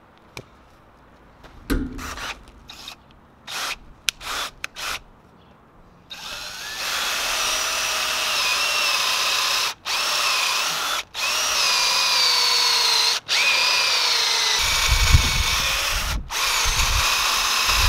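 Cordless drill boring holes into the end grain of a fresh-cut hardwood log. The motor whines steadily, its pitch sagging and wandering under load, and cuts out briefly several times between holes. A few short knocks and clicks come before the drilling starts, about six seconds in.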